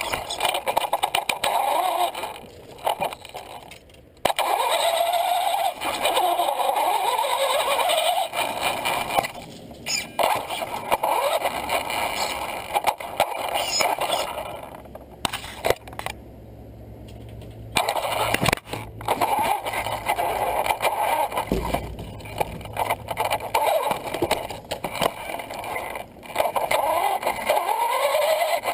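Traxxas Stampede 4x4 VXL electric RC truck driving, heard from a camera mounted on it: the brushless motor's whine rising and falling with the throttle over tyre and chassis rattle on deck boards and hard floor. There is a short lull about halfway through.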